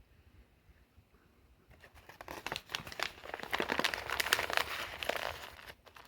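Paper food wrapping being crumpled and crinkled by hand, a dense crackling that starts about two seconds in and stops shortly before the end.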